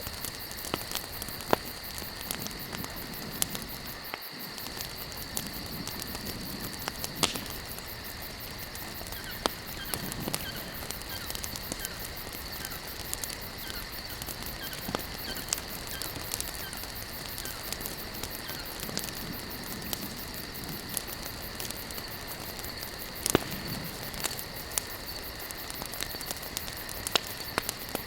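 Wood campfire burning, crackling steadily with frequent sharp pops over a soft hiss, and a steady high tone underneath.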